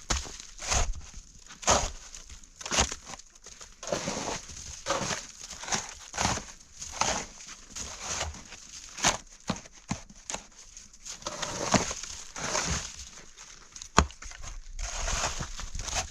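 Footsteps crunching through snow, a step roughly every second, with a sharp click about fourteen seconds in.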